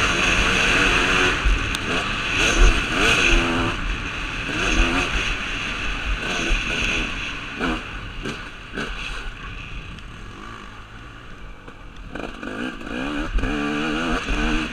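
KTM 250 SX two-stroke single-cylinder engine heard from the rider's helmet camera, revving up and down repeatedly as the dirt bike is ridden around a motocross track. The engine eases off for a few seconds past the middle and picks up again near the end.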